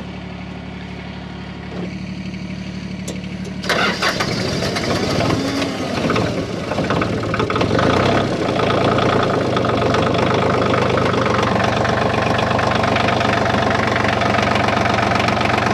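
A heavy-equipment diesel engine runs steadily. About four seconds in, an engine is cranked and catches, then keeps running louder at a steady idle.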